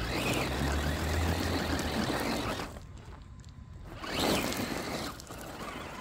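Absima Sherpa RC crawler climbing a loose gravel pile, its tyres crunching and scrabbling over stones. The noise comes in two spells: a longer one at the start, then a lull, then a short louder one.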